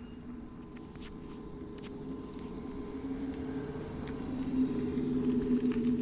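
GWM Ora electric car's acoustic vehicle alerting system (AVAS) in soft mode: a synthetic pedestrian-warning hum of a few low held tones, growing steadily louder, with a lower tone joining about halfway through.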